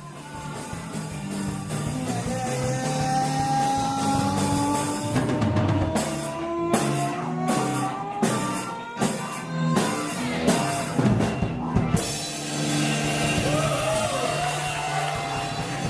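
Instrumental rock intro by a band. Sustained chords fade in under a slowly rising lead line. Drum-kit hits come in about five seconds in and stop about twelve seconds in, after which the chords carry on.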